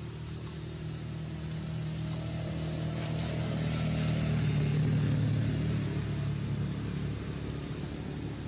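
A motor vehicle engine humming as it passes, growing louder to a peak about five seconds in, then fading away.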